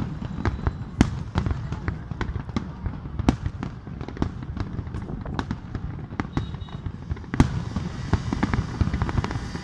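Aerial fireworks display: a rapid, irregular barrage of shell bursts banging over a continuous low rumble, with the loudest reports about a second in, a little past three seconds and past seven seconds. After the last big bang a hiss runs on beneath the bursts.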